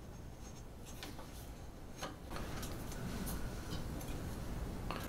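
A few faint, irregular clicks and ticks of a small screwdriver backing out a Phillips screw from a 3D printer's hot-end assembly.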